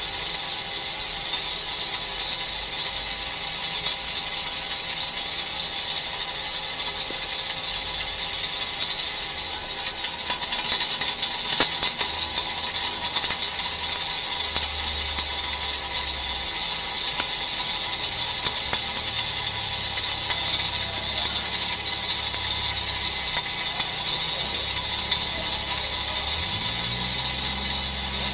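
On-car brake disc lathe running, spinning the brake disc on its hub while it resurfaces it: a steady, even hiss of metal cutting over the machine's hum, with the low hum shifting in pitch near the end.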